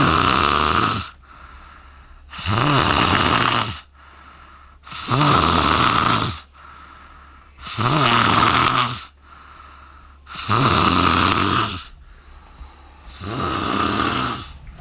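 A woman snoring loudly in deep sleep: six long, rasping snores at a steady rhythm, about one every two and a half seconds, with quiet breathing between them; the last snore is a little softer.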